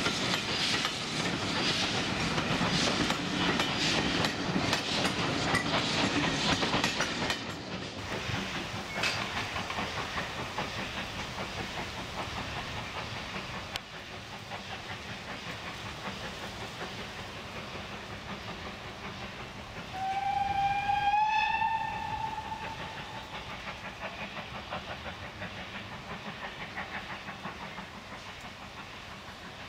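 Coaches of a departing steam train clattering over the rail joints, then the train fading into a quieter, distant rumble. About two-thirds of the way through, the BR Standard Class 4 2-6-4T tank engine's steam whistle sounds once for about two seconds, rising slightly in pitch; this is the loudest sound.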